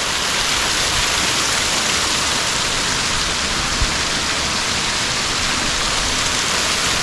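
Waterfall roaring: a steady, even rush of falling water. A single brief low thump about four seconds in.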